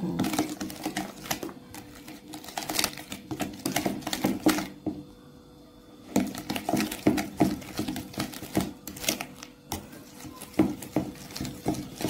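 Metal spoon clicking and scraping against a plastic mixing bowl in quick irregular strokes as flour is stirred into a wet batter, with a short pause about five seconds in.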